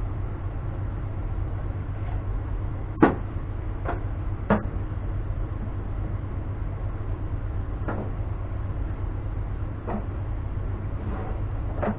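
Wooden folding table being unfolded and set down: a handful of sharp wooden knocks and clacks from the legs and top, the loudest about three seconds in, over a steady low hum.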